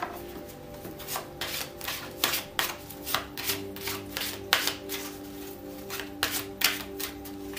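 A deck of tarot cards being shuffled by hand, overhand, packet to packet: a quick irregular series of soft card slaps and swishes, about two to three a second. Soft background music with held notes plays underneath.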